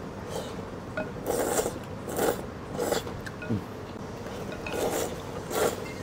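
A man slurping noodles from a bowl of soup noodles: about six short, noisy sucking slurps, the strongest about a second and a half in.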